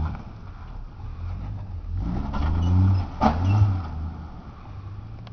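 Toyota Land Cruiser 80 series engine revving, its revs rising and falling and loudest around three seconds in, with one sharp knock just after.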